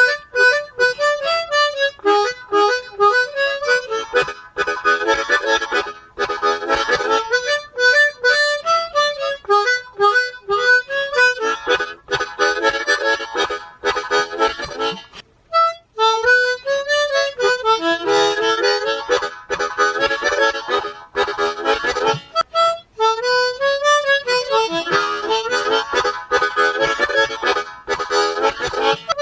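Harmonica played solo: rhythmic chords with a stepping melody line over them. It drops out briefly about halfway, then starts up again.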